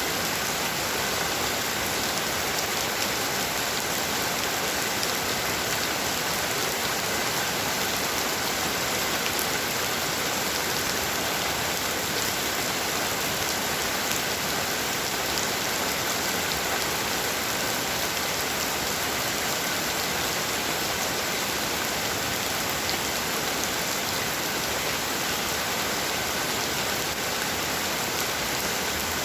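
Heavy rain falling steadily, a dense even hiss with no breaks or thunder.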